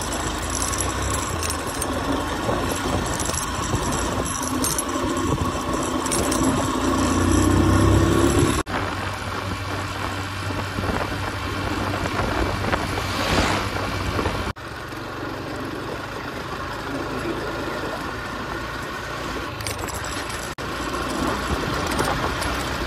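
Motorcycle being ridden on the open road, heard from a helmet-mounted phone: engine running under wind rush. The engine note rises as the bike accelerates before the first break, and the sound breaks off abruptly a few times.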